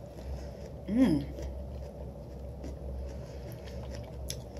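A person eating gives a short hummed "mm" about a second in, with faint scattered clicks of utensils on a plate over a steady low hum.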